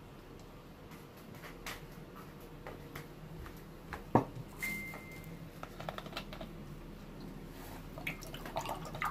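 Quiet sounds of eating by hand from a plate: fingers squishing rice and small clicks of hand and food against the plate, with one sharper knock about four seconds in followed by a brief high ring.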